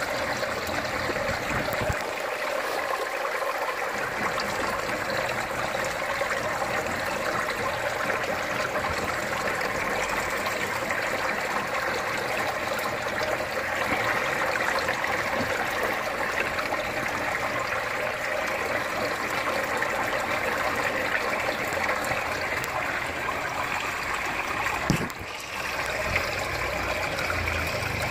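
Water pouring in thin streams and splashing steadily onto the surface of an aquaponics fish tank. Near the end there is a single knock, and the water noise briefly drops.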